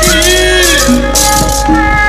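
Sundanese gamelan music accompanying wayang golek: the dalang's metal kecrek plates clash in two quick clusters, at the start and a little past halfway, over a gliding melody line and a steady low drone.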